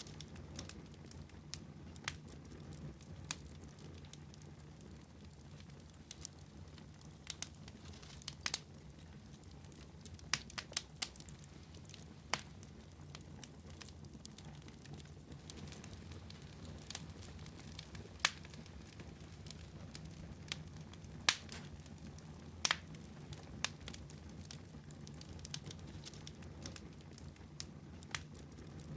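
Wood fire burning in a fireplace: irregular sharp crackles and pops, some louder snaps among them, over a steady low rumble.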